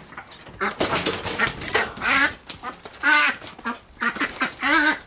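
Broody duck on her nest quacking loudly: a quick run of calls about a second in, then single harsh quacks roughly once a second.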